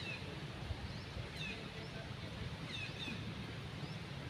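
Short, high chirping calls, repeated every second or so, over a steady low rumble.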